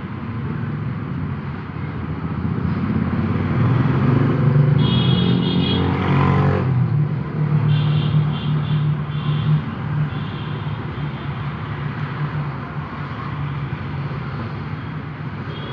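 Road traffic: a motor vehicle engine running close by, growing louder and then easing off around the middle, with a few short higher-pitched tones over it.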